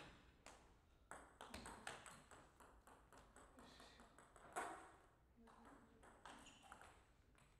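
Celluloid-type plastic table tennis ball ticking sharply off rackets and the table in a rally, at an irregular pace, then lighter ticks as the ball comes to rest. One louder sound comes about four and a half seconds in.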